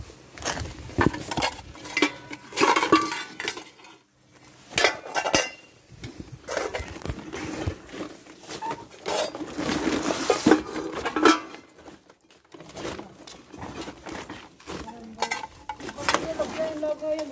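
Metal cooking pots and lids clanking and clinking against each other as they are handled and gathered, in irregular knocks throughout.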